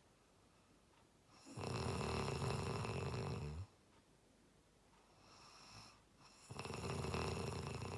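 A person snoring in sleep: two long snores about two seconds each, with a softer breath out between them.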